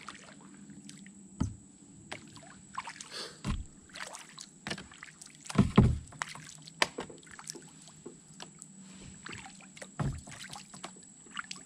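Kayak paddling: paddle blades dipping and splashing in the water, with water dripping, and a few knocks against the plastic kayak, the loudest about two-thirds of the way through. A steady high tone runs underneath.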